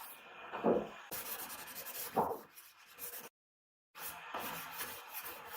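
Faint rubbing strokes from hand work on a cricket bat, the two clearest about a second and a half apart. The sound cuts to dead silence for about half a second near the middle.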